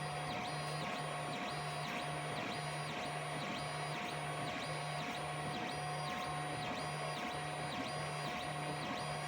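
3D printer's stepper motors whining as the print head sweeps back and forth in even strokes, about two a second. Each stroke's pitch rises, holds and falls, with a steady fan hum underneath.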